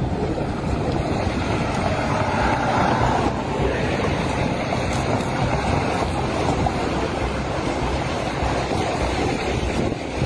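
Steady wind rumble on a phone microphone, mixed with the noise of vehicles driving past on the road.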